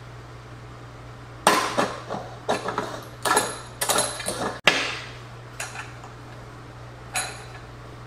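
Metal clinks and knocks as a mini keg's screw-in lid, with its dip tube attached, is handled, set into the keg's opening and turned down by hand: a handful of separate knocks spread out, the sharpest about halfway through.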